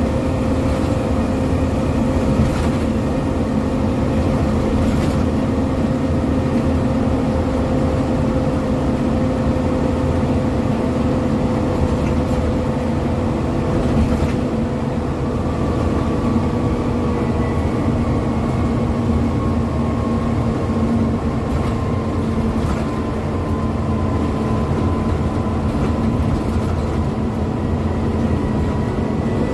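Scania OmniDekka double-decker bus engine running steadily at road speed, heard inside the upper deck, with its note drifting slowly lower. A high whine joins about halfway through, with a few light rattles.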